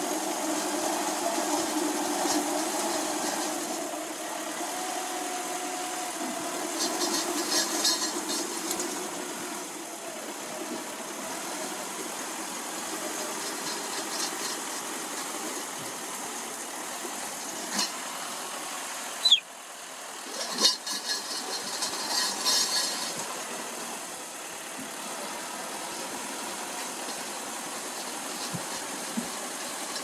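Old crawler bulldozer's diesel engine running under load while it pushes river gravel with its blade, with bursts of clanking and knocks twice.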